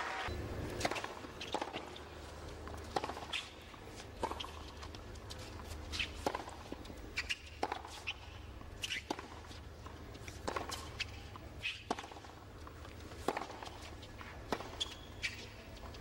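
Tennis balls struck by rackets and bouncing on a hard court, with sharp hits and bounces every half second to second and a half and sneakers squeaking on the court, over a low steady stadium rumble.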